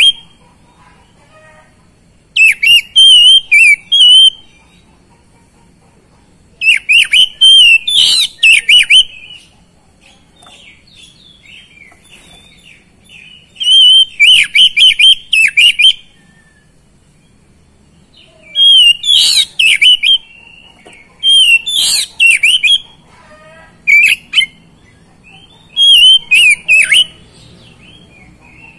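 Oriental magpie-robin (kacer) in full 'gacor' song: loud bursts of rapid whistles and chattering notes, each lasting one to three seconds, about seven times, with softer twittering in the gaps.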